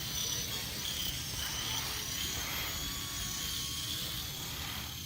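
Small remote-control helicopter in flight: a steady whir from its rotor and motor, with faint high whining tones.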